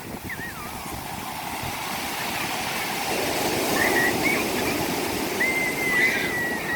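Rough sea surf washing in, a steady rush of waves that swells louder about halfway through, with birds giving short wavering calls over it.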